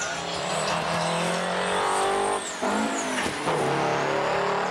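Semi-truck tractors' diesel engines running hard as they accelerate down a drag strip in a truck race. The engine note dips briefly about two and a half seconds in, then climbs again.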